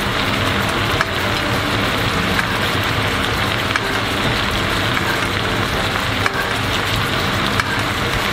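Garlic-soy sauce boiling hard around chicken thighs in a frying pan over high heat: a steady bubbling sizzle as the sauce reduces and thickens. A few light clicks come from a spoon basting the meat.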